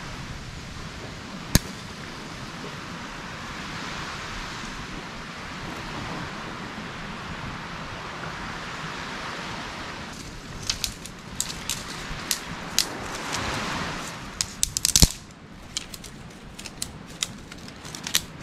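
Steady hiss of surf and wind with a single sharp knock about a second and a half in. From about ten seconds in, a small fire of dry twigs catches and crackles with rapid, irregular sharp pops, loudest near the end.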